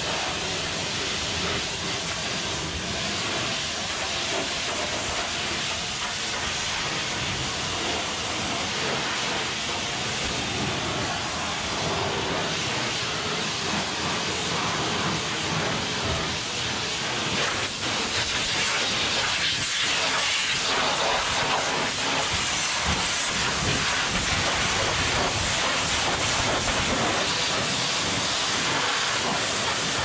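Hot-water pressure washer spraying its jet onto steel calf pens: a steady hiss of high-pressure spray with uneven spatter as the water strikes the metal panels and the straw-covered ground.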